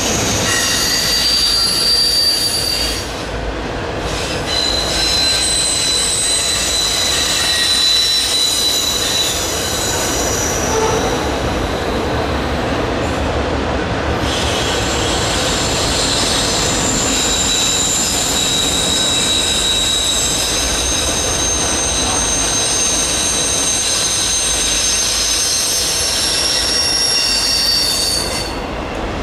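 Cars of a long freight train rolling by with steady wheel-on-rail rumble. Over it, wheel flanges squeal in several high tones as the train takes the curve; the squeal drops out briefly twice and comes back.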